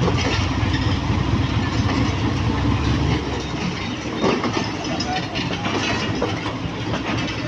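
Passenger train coaches rolling past on the rails as the train pulls out of the station: a steady rumble of wheels on track with light clicks over the rail joints. The deep low rumble drops off about three seconds in.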